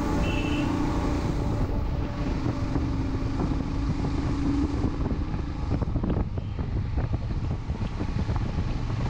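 Vehicle travelling on the road: a steady engine hum under heavy wind noise on the microphone, with the engine tone fading about halfway through.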